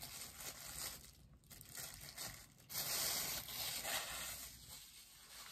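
Packaging being torn and crinkled off a bobblehead as it is unwrapped by hand, louder for a couple of seconds about three seconds in.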